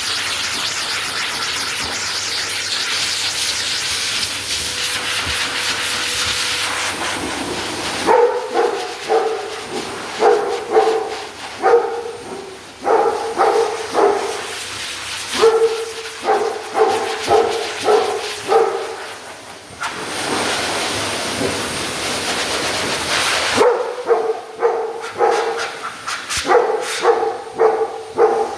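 A pet blow dryer blowing with a steady hiss, cut off about eight seconds in, then a wolfdog giving runs of short pitched cries, protesting at the drying. The dryer hisses again for a few seconds before the dog's cries resume near the end.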